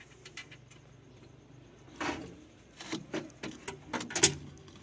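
Clicks and knocks of door lock parts being handled and fitted inside a car door: a few light clicks, a louder clatter about two seconds in, then a quick run of sharp clicks and knocks, the loudest near the end.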